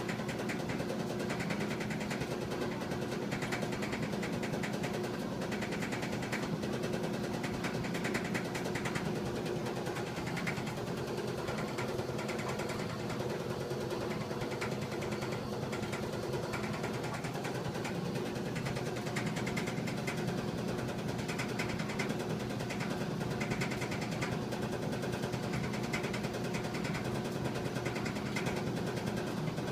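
1987 GE DDE7500GALWH clothes dryer running with a loud clanking, a fast, continuous rattle of knocks over a steady hum. It is the noise of a worn idler pulley, belt and drum slides; replacing those parts made it go away.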